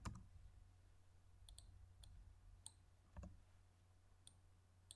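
Faint clicks of a computer mouse, about half a dozen spread unevenly across a few seconds, some in quick pairs, over a steady low hum.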